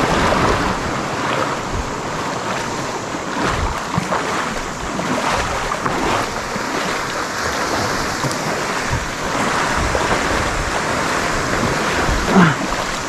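Steady wash of waves with wind buffeting the microphone, broken by a few scattered knocks and a brief louder sound near the end.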